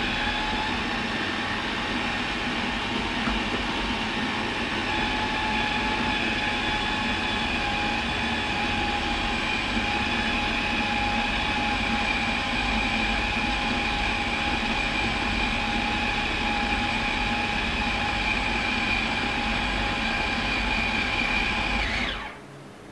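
Electric food processor running steadily with a constant motor whine, blending minced meat with bulgur and onion into a smooth, dough-like paste. It cuts off suddenly near the end.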